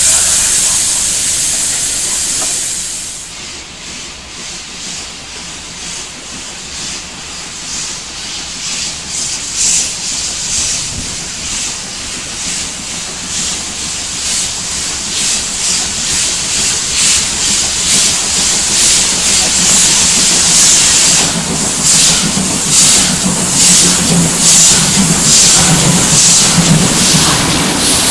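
Steam locomotive venting steam with a loud, steady hiss. About three seconds in, this gives way to a steam locomotive working toward the listener, its chuffing exhaust beats regular and growing steadily louder as it comes close and passes in a cloud of steam.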